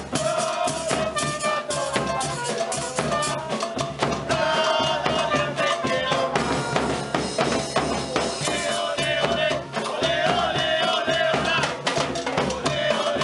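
A supporters' percussion band playing: bass drums and a snare drum beating a fast, dense rhythm, with a metal shaker tube rattling along.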